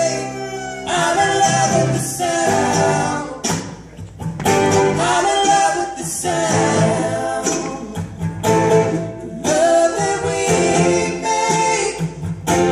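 Bluegrass string band playing and singing live: voices at the microphones over acoustic guitars, five-string banjo, upright bass and fiddle.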